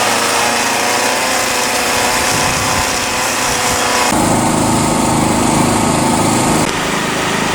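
Small petrol engine running steadily at speed. Its pitch and tone shift abruptly about four seconds in and again near the end.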